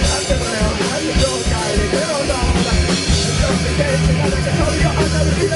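Live rock band playing loud, with heavily distorted electric guitars and a drum kit.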